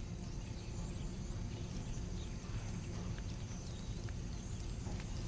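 Faint steady outdoor background ambience: a low rumble under a light hiss, with a few soft ticks scattered through it.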